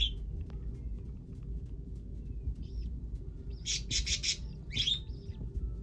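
Pet parakeets (budgerigars) chirping in short, high bursts, mostly in a cluster from about two and a half to five seconds in, over a steady low rumble.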